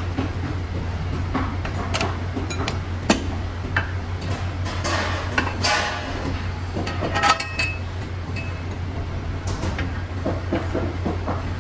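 Steel tractor-seat frame parts clinking, clicking and scraping as they are handled and fitted, with a cluster of sharper metallic clinks with a short ring a little past the middle, over a steady low hum.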